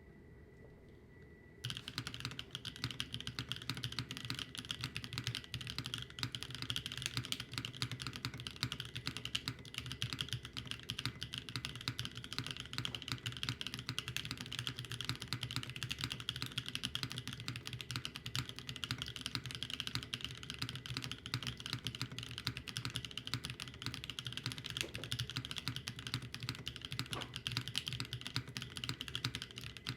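Continuous fast typing on a mechanical keyboard fitted with Taro N Sweet Potato V2 linear switches (POK top housing, LY stem, 52 g single-stage spring, factory lubed): a dense, steady stream of key clacks that starts about a second and a half in, after a faint high hum.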